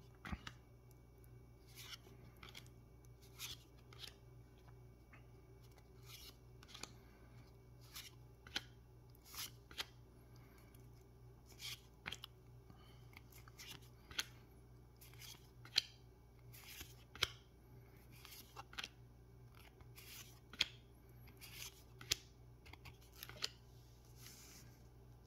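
Trading cards being handled: cards slid off a stack in the hand and set down on a playmat. They make a series of short, crisp card flicks and swishes, about one a second and sharper in the second half.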